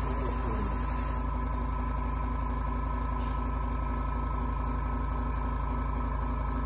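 Steady low motor hum of the airbrush spray booth's extraction fan. A thin airbrush hiss over it stops about a second in as the spraying ends.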